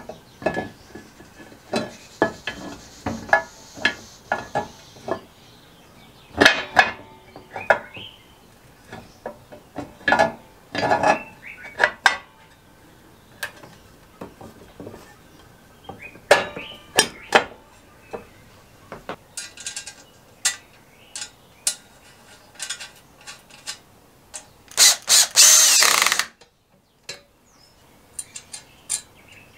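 Metal clinks and knocks as a painted metal side plate is worked onto the shafts and frame of a Suffolk reel lawnmower during reassembly, in irregular clusters. Near the end there is one louder, hissing burst lasting about a second and a half, then a brief pause.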